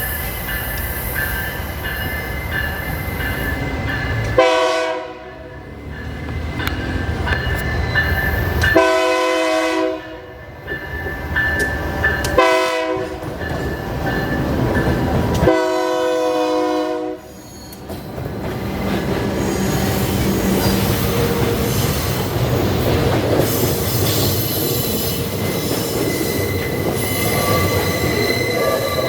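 A freight locomotive's horn sounds four times, long, long, short, long, the grade-crossing signal. Under the horn the train's wagons roll past with steady wheel squeal and rumble.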